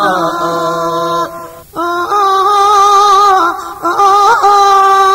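Thai lam tad folk singing: a voice holds long, slightly wavering notes with no words. It breaks off briefly twice, about a second and a half in and again near the four-second mark.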